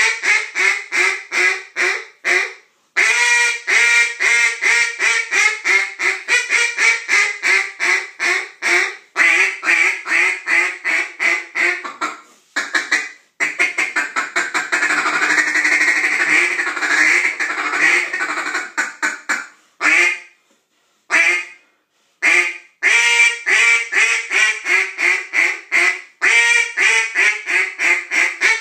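A hand-blown duck call sounding rapid strings of hen-style quacks in runs broken by short pauses. About halfway through it switches to one long, unbroken chattering run before the quack sequences resume.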